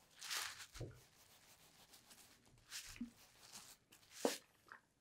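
Hands pressing and rolling a wet wool felt tube over bubble wrap to shrink it during fulling: a few faint, short rustling swishes, the loudest near the end.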